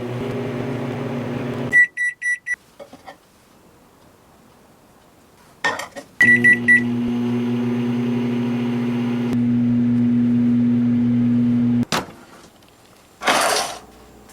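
Microwave oven humming as it runs, then stopping with three short beeps and a few clicks of the door. After a pause, more clicks and a quick run of keypad beeps start it again; it hums for about five seconds and shuts off with a click. A brief rustling burst comes near the end.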